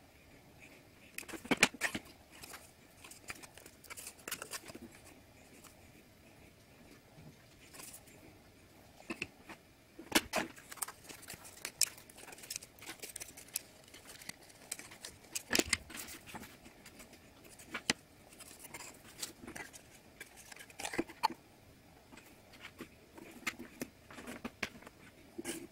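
Foam-board 3D puzzle pieces being handled, pressed out of their sheets and slotted together: irregular small clicks, taps and rustles, with sharper snaps about two, ten and sixteen seconds in.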